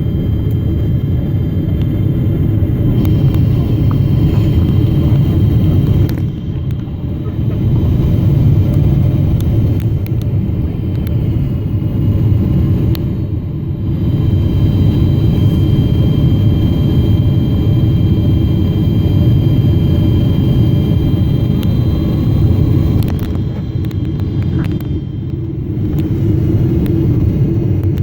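Cabin noise of a Boeing 777-300ER: a steady low rumble of its GE90 engines and airflow, with faint high whining tones above it, dipping briefly in level three times.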